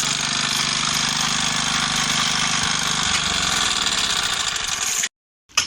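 A small engine running steadily under a loud hiss, its pitch sagging slightly about three seconds in; the sound cuts off suddenly about five seconds in.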